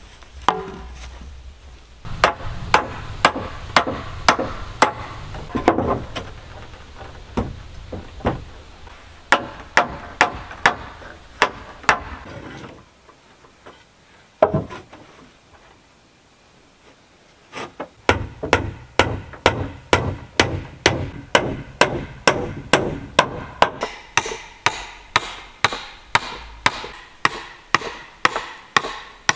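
A hammer striking wood in steady blows, about two a second, with a pause of a few seconds in the middle.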